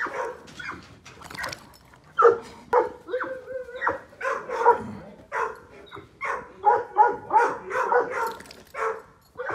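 Two large dogs, a white Dogo Argentino and a Presa Canario, play-fighting: a quick run of short excited barks, yips and whines, about two a second.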